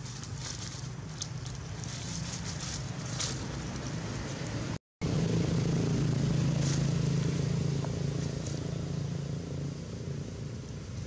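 Dry leaves rustling and crackling as a baby macaque moves over leaf litter, over a steady low engine hum. The sound cuts out for a moment a little before halfway, and the hum is louder after it.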